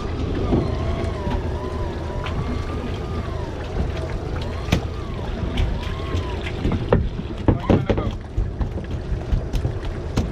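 Steady low rumble and wind noise aboard a fishing boat at sea, with a few sharp knocks. A faint wavering tune runs through the first six seconds.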